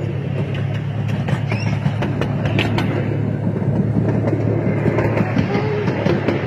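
Zoo train heard from on board while moving along its track: a steady low rumble with irregular clicking of the wheels over the rails and joints.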